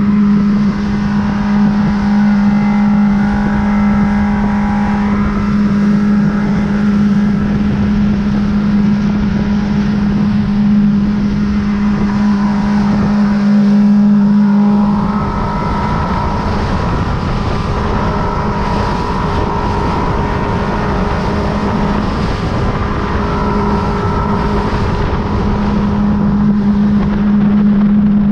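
Motorboat engine running steadily under way at speed, with water and wind rushing past the hull. The engine's hum eases about halfway through and picks up again near the end.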